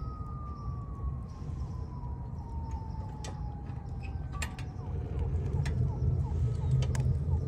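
Wood fire burning in a Camp Chef steel camp stove: a low rumble with scattered sharp pops and crackles, the rumble growing about five seconds in as the stove door is opened. A thin high tone slowly falls in pitch through the first four or so seconds.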